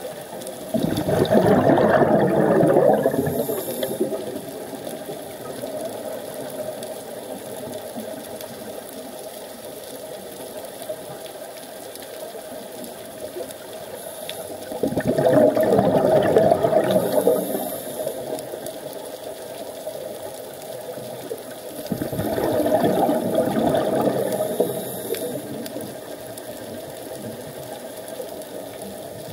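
Scuba diver's exhaled bubbles rushing out of the regulator, heard underwater: three long bubbling bursts of two to three seconds each, about a second in, about halfway through and about three quarters through, with a steady hum between them.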